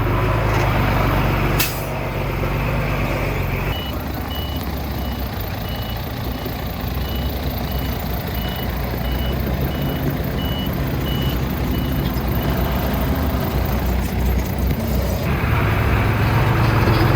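Dump truck reversing: its backup alarm beeps steadily, about one and a half beeps a second, over the diesel engine, and stops about three-quarters of the way through. A short sharp burst of air comes before the beeping starts.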